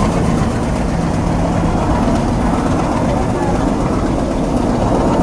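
ALCO WDM-3A diesel locomotive chugging steadily under power, heard from a coach window of the train it is hauling.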